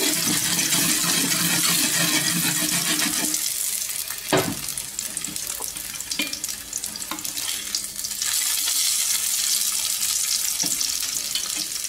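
Salmon steak sizzling in hot oil in a frying pan: a steady hiss, with a few light knocks of the spatula against the pan, the sharpest about four seconds in. A low hum runs under it for the first three seconds or so.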